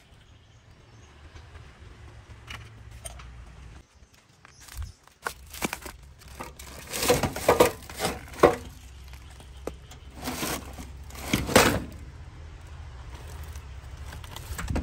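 Hands rummaging through a scrap pile, with plastic sheeting crinkling and loose junk clicking and clattering as an old rusty car amplifier is dragged out. The noise comes in several louder bursts of handling in the middle stretch.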